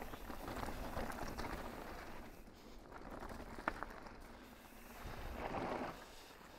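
Mountain bike rolling over a dirt and rock trail: tyres crunching and scattered clicks and rattles, easing off in the middle and picking up again about five seconds in.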